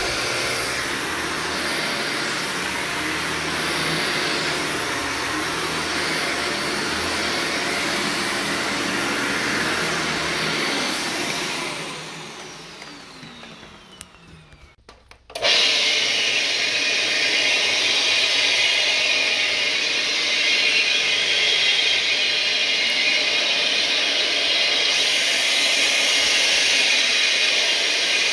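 Upright vacuum cleaner running steadily, then switched off about twelve seconds in, its motor winding down with a falling pitch. After a short lull a different carpet-cleaning machine starts suddenly and runs with a steady, hissy whir.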